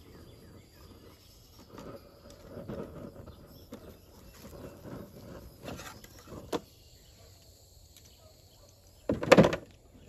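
A bee smoker's bellows being pumped: a run of soft puffs, then a quiet spell, then two louder puffs near the end.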